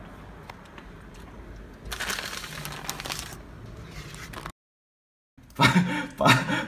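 A plastic parcel mailer rustling for about a second and a half as it is handled, with a few faint clicks. The sound then cuts out completely for about a second, and a man's voice and chuckling start near the end.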